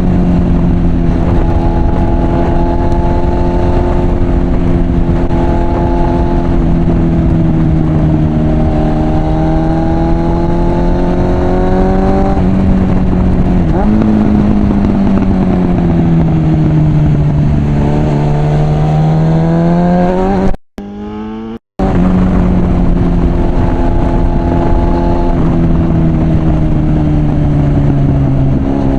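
Suzuki GSF 650 Bandit's inline-four engine through its aftermarket Mivv exhaust, pulling through the gears on the move: the engine note holds steady, climbs, drops back off the throttle and climbs again. The sound cuts out for about a second about three-quarters of the way through.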